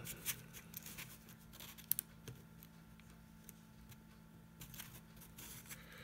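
Faint small clicks and scrapes of a screw and nut being fitted through a clear acrylic case panel into a small plastic cooling fan, with one sharper click about two seconds in. A low steady hum runs underneath.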